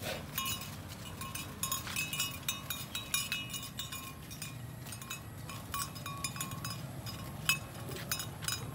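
Bells on cattle clinking irregularly as the cattle walk and graze, each strike ringing briefly, over a steady low rumble.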